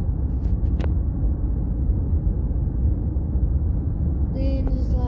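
Steady low rumble of a moving vehicle's road noise, heard from inside, with a single click about a second in and a brief pitched sound near the end.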